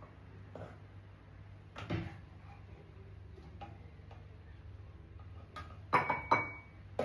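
Kitchen utensil clinking and knocking against dishes while food is served into a bowl: one clink about two seconds in, then a quick cluster of louder knocks near the end, over a faint low steady hum.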